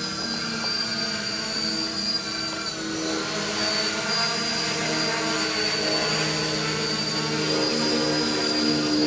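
Hexacopter with six Avroto 770kv brushless motors and 11x5 propellers hovering: a steady propeller hum made of several tones that drift slightly in pitch, with a high motor whine over it.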